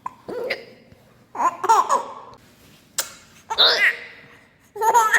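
Baby laughing in short bursts, with a sharp hiccup about three seconds in.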